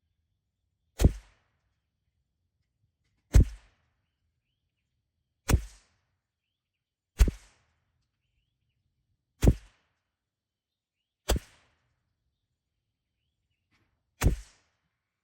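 Seven .22 LR rimfire rifle shots from a CZ 457 bolt-action, fired one at a time roughly every two seconds, each a sharp crack with a short echo.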